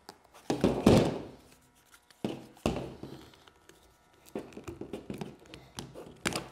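Knocks and clicks of a plastic steering-wheel center pad being handled and pried apart on a table. A heavy knock comes about a second in, two lighter knocks follow, and then a quick run of small clicks and taps.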